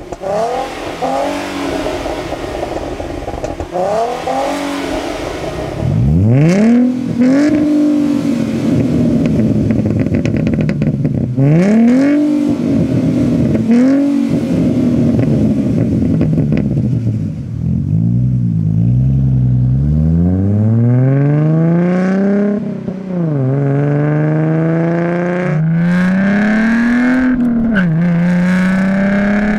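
A 2011–2014 Ford Mustang's 3.7-litre V6 revving in repeated throttle blips, first through the stock exhaust and then, from about six seconds in and louder, through a Pypes Black Pype-Bomb axle-back, a muffler delete with resonator tips. Near the middle the revs climb more slowly and hold before dropping back.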